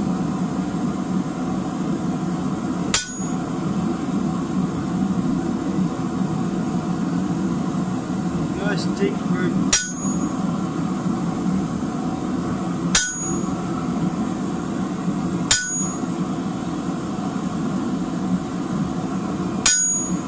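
Hammer striking a hand-held chisel set on a red-hot square steel bar on an anvil: five widely spaced blows, each with a short bright metallic ring, cutting notches for a pineapple twist. A steady low drone runs underneath.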